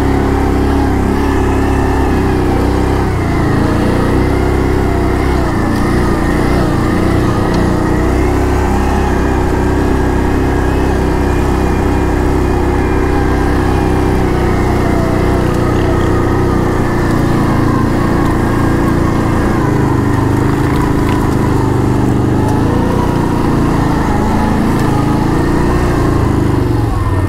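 ATV engine running steadily on light throttle while riding, its pitch rising and falling only slightly.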